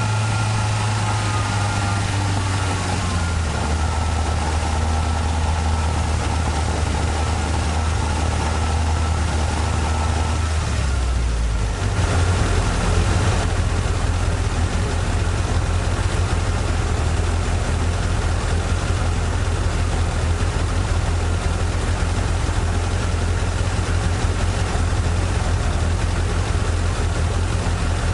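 Toyota AE86 Trueno's 4A-G twin-cam inline-four idling; its note shifts about three seconds in and again about twelve seconds in, becoming slightly louder and choppier.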